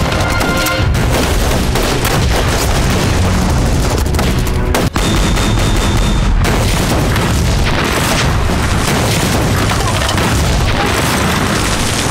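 Battle sound effects: rifle and machine-gun fire mixed with explosion booms, a dense, continuous din with a heavy low rumble. The din breaks for an instant about five seconds in.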